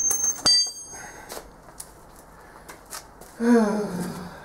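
Two sharp metal strikes that ring on with a high tone, half a second apart, as the mandrel stuck in the cast faceplate is knocked to free it. About three and a half seconds in, a man gives a short groan that falls in pitch.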